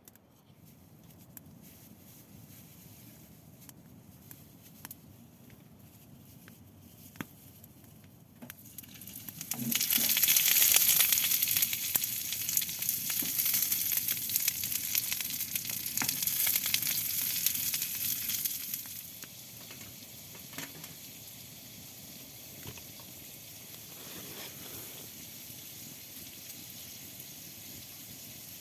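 Meat frying in a hot pan on a stove: faint crackling at first, then loud sizzling from about a third of the way in for some ten seconds, settling back to a quieter sizzle.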